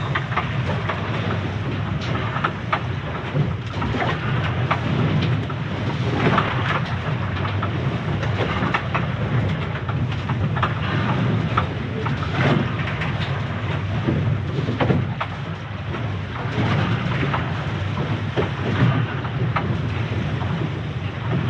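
Seawater rushing past the leeward hull of a Leopard 45 sailing catamaran, heard from inside the hull's forward cabin: a steady low rumble and hiss of water. Now and then a wave knocks against the hull.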